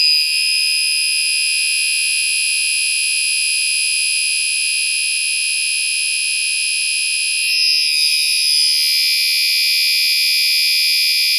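Gentex Commander 3 fire alarm horn sounding its continuous tone: one loud, steady, unbroken high-pitched blast that cuts off suddenly at the end.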